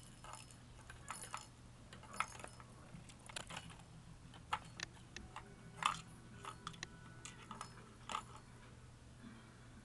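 A kitten's small toy bell jingling and clicking in irregular bursts as she bats and pounces on it, with the loudest jingle about six seconds in.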